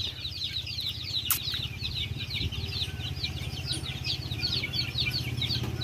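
A brood of young chicks peeping continuously, many short chirps a second, each falling in pitch, over a steady low hum.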